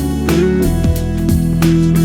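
Background music with guitar, plucked and strummed notes.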